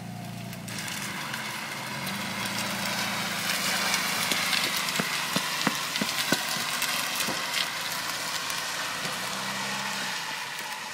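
VW Golf's engine running as the car slides sideways on plastic lunch trays over wet asphalt: a hissing scrape that swells toward the middle, with scattered sharp clicks and pops from the trays about halfway through.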